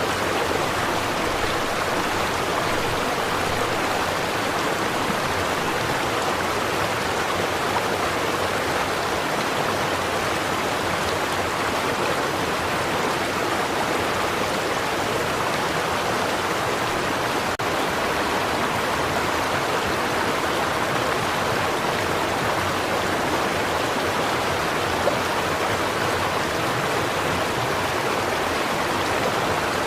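A small stream of water running steadily over rocks, an even, unbroken rush.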